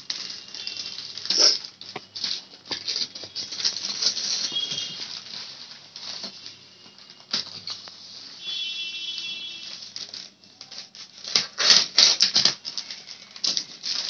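Plastic courier mailer bag crinkling and rustling in irregular bursts as it is cut with scissors and pulled open, with a cluster of louder tearing rustles near the end.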